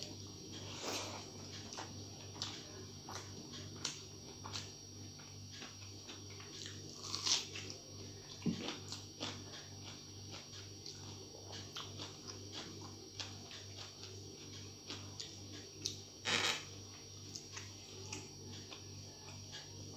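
Close-up mouth sounds of a person eating a rice meal: chewing with many short, scattered wet clicks and smacks, two louder smacks about 7 and 16 seconds in. A steady low hum runs underneath.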